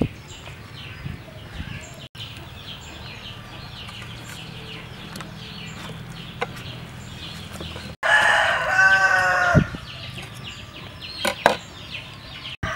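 Farmyard chickens in the background, then a rooster crows about eight seconds in, lasting a second and a half. A few sharp knocks come after it.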